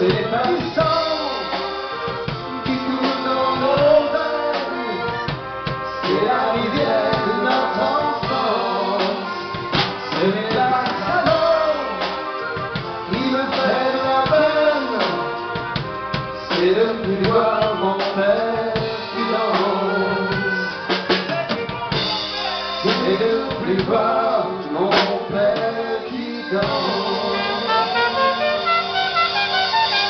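Live dance band playing: a drum kit with snare and cymbals keeps the beat under a melody, with a quick run of notes near the end.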